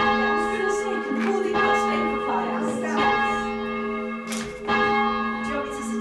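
Church tower bells rung full-circle by rope, heard from the ringing chamber below. Several bells strike one after another, about one stroke every half second to second, and their tones and hum ring on between the strokes.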